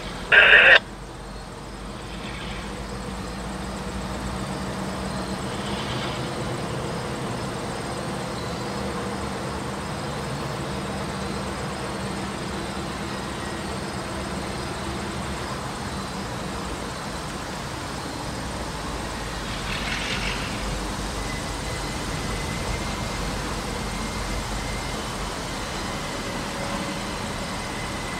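Diesel locomotive engine running, its note building up over the first few seconds and then holding steady as it throttles up with exhaust smoke. A short, loud noise comes right at the start.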